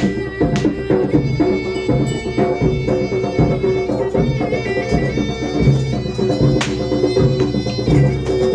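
Traditional Javanese bantengan accompaniment music: a shrill reed wind instrument plays a wavering melody over drums and struck percussion.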